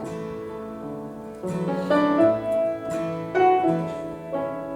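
Soft instrumental music: held chords with new notes entering about every second.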